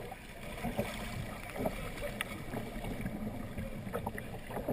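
Shallow river rapid rushing past the bow of a kayak, with a few small splashes of paddle strokes.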